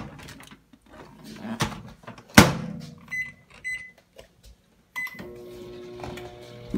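Panasonic microwave oven being started: a loud clunk about two and a half seconds in, then three short keypad beeps, and about five seconds in the oven starts running with a steady hum.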